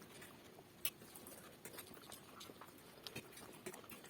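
Faint eating noises: scattered small clicks and smacks of mouths and fingers on food and plate, one a little louder about a second in.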